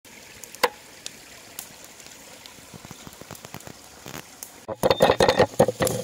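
Campfire crackling with scattered pops, one sharper pop under a second in. About three-quarters of the way through, a louder, busy crunching rattle begins: a pestle grinding coarse salt and peppercorns in a mortar.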